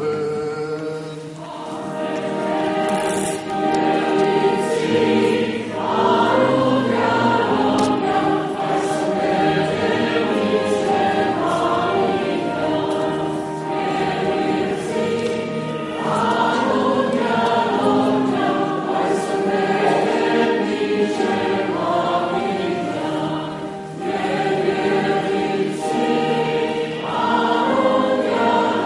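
Armenian church choir singing a hymn, several voices together in long held chords, phrase after phrase with fresh entries every several seconds.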